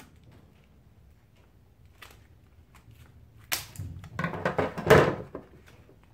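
Muskrat being skinned by hand: a few faint clicks, then about three and a half seconds in, a burst of tearing and scraping lasting about two seconds as the pelt is pulled down off the carcass.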